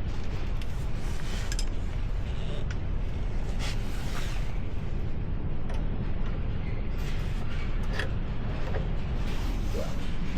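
A steady low rumble with a few sharp metallic knocks and clinks from parts being handled and worked on the truck.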